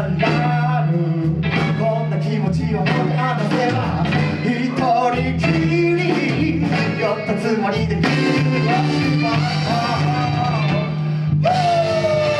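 Live rock band playing a song: a lead melody bending over a steady bass line and drums. About eleven seconds in, a long held note slides slowly down in pitch.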